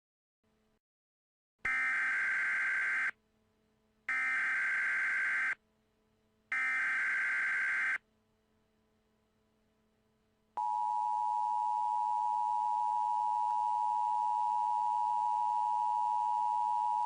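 Emergency Alert System SAME header: three identical bursts of warbling digital data tones, each about a second and a half long with short gaps between. After a pause, the steady two-tone EAS attention signal (853 and 960 Hz together) comes in about ten and a half seconds in and holds.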